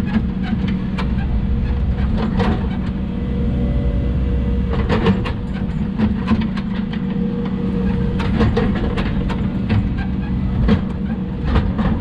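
Hidromek 140 excavator's diesel engine running steadily under working load, with short bursts of clattering knocks about five times.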